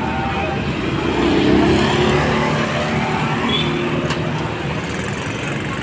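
Roadside traffic: vehicle engines running steadily, with a motorbike passing close by midway. A single brief click about four seconds in.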